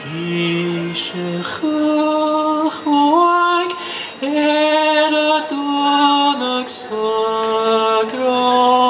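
A man singing a Scottish Gaelic song solo and unaccompanied, in long held notes that step from pitch to pitch, with a short slide up about three seconds in.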